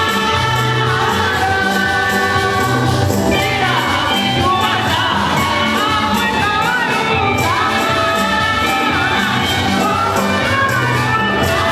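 Congregation or choir singing a hymn with instrumental accompaniment and a steady beat.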